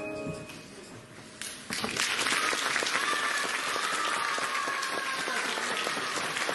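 The song's last sung and piano note dies away, and after a brief hush an audience breaks into applause about a second and a half in, steady clapping from then on.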